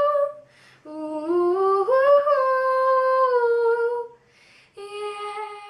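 A young boy's unaccompanied voice sings a wordless melody. One phrase climbs in steps and then eases back down, there is a quick breath, and then he holds a single note near the end.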